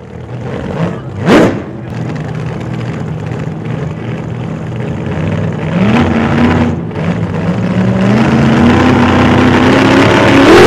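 A vehicle engine accelerating, its pitch climbing in steps and getting louder toward the end. A brief sharp sweep about a second and a half in is the loudest moment.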